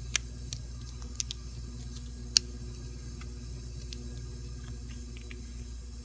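A few sharp small clicks, irregularly spaced, the loudest about two and a half seconds in, over a steady low hum: small watch parts and tools being handled during a quartz watch battery change.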